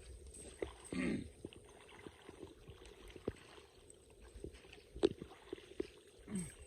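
Light water splashing with scattered small knocks, the sharpest about five seconds in.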